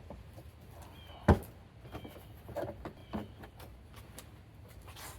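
Plastic top engine cover being pulled off a car engine: a sharp knock about a second in, then several lighter clicks and knocks.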